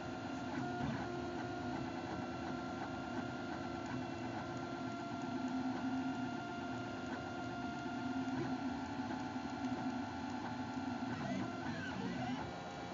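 Stepper motors of a homemade chocolate 3D printer whining as the extruder head moves over the bread, a mix of steady tones whose pattern shifts with each move, with brief gliding pitches near the end.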